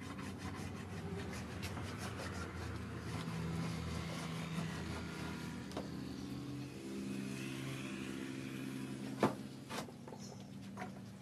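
A wooden marking gauge scraping along a plank as the cutting lines are scribed, over a steady engine hum that shifts in pitch a couple of times. A sharp knock comes about nine seconds in.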